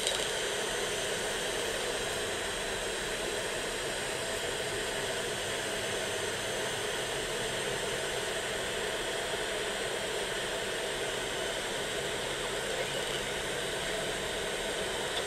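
Steady, even hiss, with no distinct calls, knocks or voices in it.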